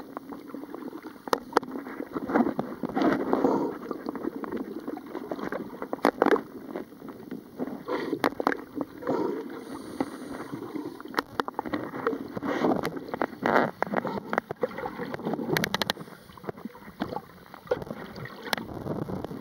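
Water gurgling and sloshing around an underwater camera moving over the seabed, in uneven surges, with scattered sharp clicks throughout.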